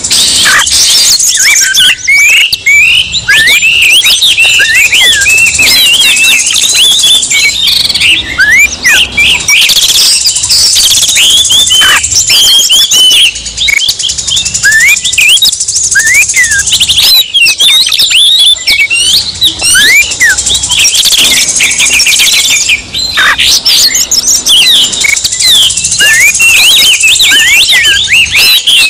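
Oriental magpie-robins (kacer) singing loudly and without pause: a dense, agitated run of rapid chirps, slurred whistles and quick rising and falling notes, the aggressive 'emosi' song used to provoke a rival kacer. A steady high-pitched buzz sits underneath for long stretches.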